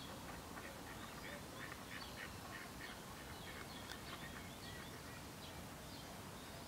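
A flock of waterfowl calling, many short overlapping calls, thickest in the middle, over steady low background noise.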